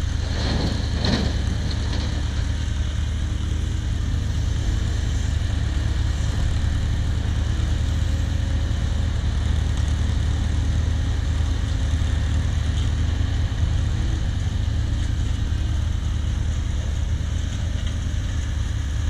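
Cat 304 mini excavator's diesel engine running steadily, with a brief higher rising-and-falling sound about a second in.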